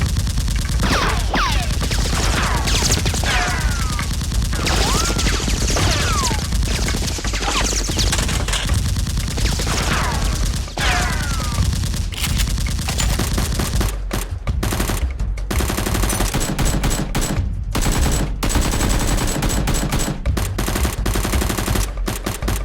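Rapid automatic gunfire, many shots overlapping in a sustained fusillade, with several falling whistles in the first half.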